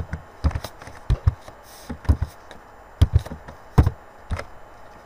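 Computer keyboard being typed on: about a dozen separate keystrokes, each a sharp tap, in an irregular rhythm.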